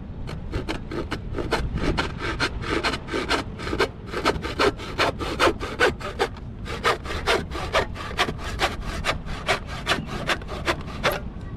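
Hand saw cutting through a black plastic pipe: rhythmic back-and-forth strokes, about three a second, with brief pauses about four and six seconds in.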